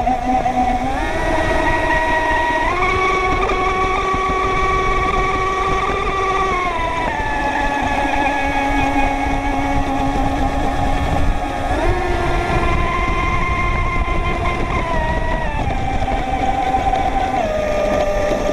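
Motor of an RC racing boat running at speed, heard from on board, with a high-pitched tone that holds steady and then steps up or down as the throttle changes: up about a second in and again near 3 s, down about 7 s in, up near 12 s and down again near the end. Under it, a steady hiss of spray and water rushing past the hull.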